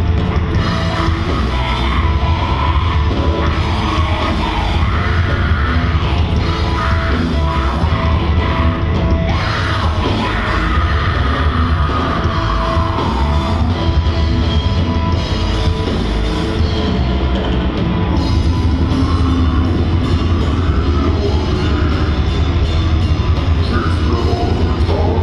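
Heavy metal band playing, with heavy bass and drums and yelled vocals.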